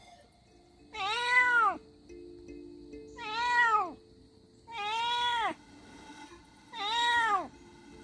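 A cat meowing four times, about every two seconds; each meow is a long, drawn-out call that rises and then falls in pitch.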